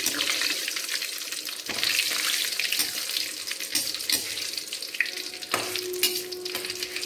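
Curry leaves, dried red chillies and mustard seeds sizzling and crackling in hot oil in a steel kadai while a tempering (tadka) is fried. A perforated steel ladle stirs through them with sharp clicks against the pan.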